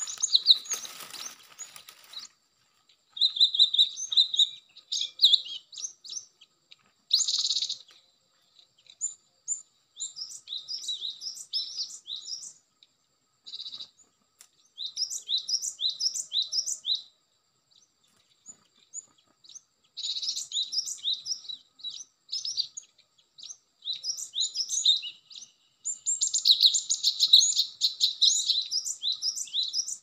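Cinereous tits (gelatik batu) calling in repeated runs of quick, high chirps with pauses between. There is a short rustling noise in the first two seconds.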